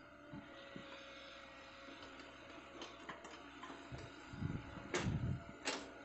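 Hydraulic excavator working at a distance: a faint, steady engine hum, a low rumble building from about four seconds in, and two sharp metallic clanks just before the end.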